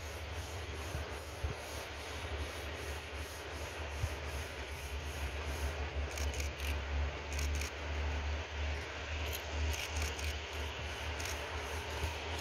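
Wind buffeting the microphone, an uneven low rumble over a faint, steady hiss of outdoor ambience.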